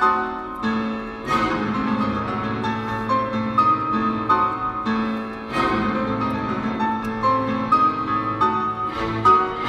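A piano concerto played over a Toyota Prius's car audio system, heard inside the cabin: a solo piano passage of quick notes and chords, with the orchestra just before.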